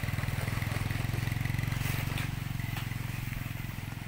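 Small motorcycle engine idling with a fast, steady putter, getting a little quieter over the last second or so.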